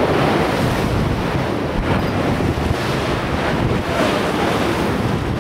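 Wind buffeting the microphone on a moving boat, over a steady rush of sea water.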